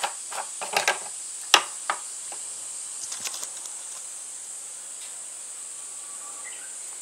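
Sharp clicks and knocks of plastic being handled while refuelling a backpack brush cutter from a jerry can, several in the first two seconds with the loudest about a second and a half in. Under them runs a steady high-pitched insect chorus.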